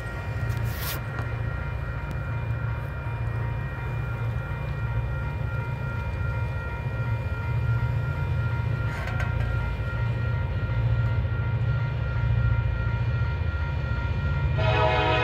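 Grade-crossing bell ringing steadily over the low rumble of approaching diesel locomotives. The train's air horn starts to blow just before the end.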